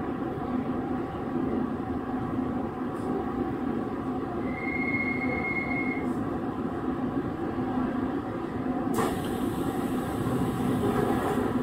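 Chiba New Town Railway 9100 series WN-drive electric motor car running at speed, heard from inside the car: a steady rumble of wheels and running gear. A brief high whine comes about halfway through, and a sudden rushing hiss sets in about nine seconds in.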